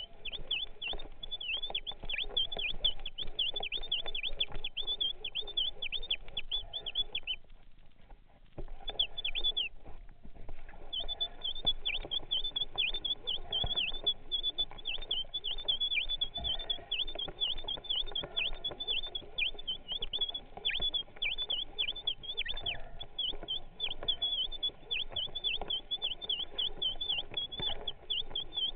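Sound picked up by an underwater camera on a speargun: a steady high whine broken by constant quick downward chirps, over faint crackling. The whine breaks off for a few seconds about a quarter of the way in, then resumes.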